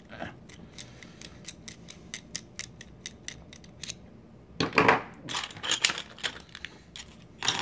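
Small metallic clicks and scrapes of a screwdriver working the retaining screw of a padlock body, about three or four light ticks a second, then a louder clatter of metal parts being handled from about four and a half seconds in.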